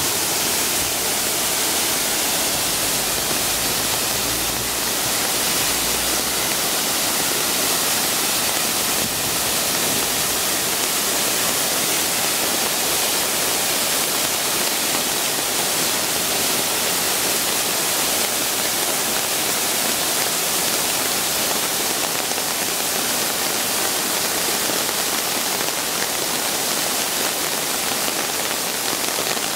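Rain-fed runoff pouring down a small rocky waterfall: a steady rush of falling water.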